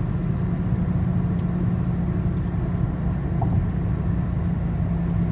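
Steady road and engine drone heard from inside a car's cabin while it cruises on a highway, deep and unchanging throughout.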